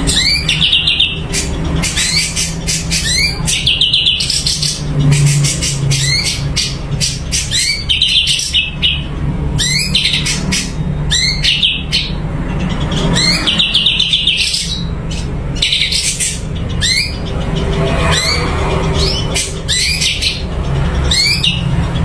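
Cucak cungkok songbird singing continuously: repeated short, rising whistled phrases mixed with rapid chattering notes. A steady low hum runs beneath.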